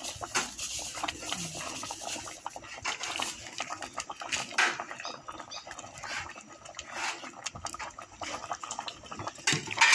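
Aluminium pot of bamboo-shoot curry boiling on a gas burner, with irregular clicks and knocks of a ladle against the pot.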